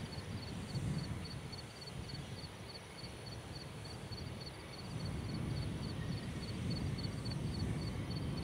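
Outdoor ambience: a low, uneven rumble that grows louder about halfway through, with a steady, rapid high chirping repeating about three times a second.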